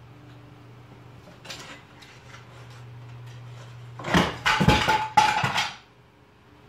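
A cat tumbles off a small end table and a lamp crashes to the floor with it: a loud clattering crash lasting over a second, about four seconds in, over a low steady hum.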